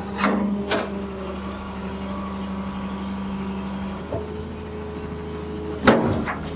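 Old John Deere excavator's diesel engine running steadily under hydraulic load while the machine lifts itself and turns its tracks. The note shifts about four seconds in, and there are a few sharp clanks, the loudest near the end.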